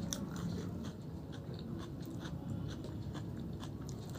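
A person eating a meal: chewing, with many small, irregular mouth and food clicks.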